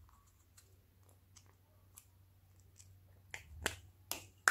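Snap-on lid of a small plastic pot being worked loose and pried off: faint ticks, then a few sharp plastic clicks and pops near the end, the last one the loudest.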